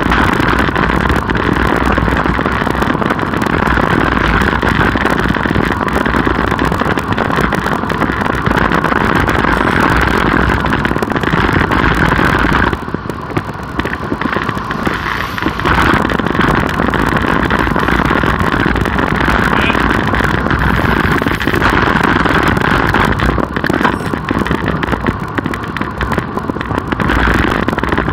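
Steady rush of wind and road noise from a road bike in motion, with passing car traffic; it drops briefly about halfway through, then comes back.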